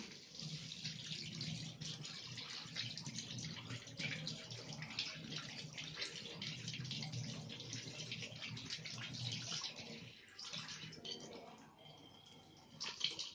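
Tap water running into a stainless steel sink while hands are rinsed under the stream, a steady splashing that dies down near the end.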